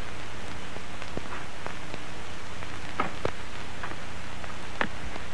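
A steady hiss over a low hum, with a handful of scattered sharp clicks, the loudest about three seconds in and near the end.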